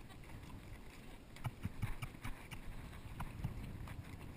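Horse hooves clopping at a walk: faint, irregular knocks over a low rumble.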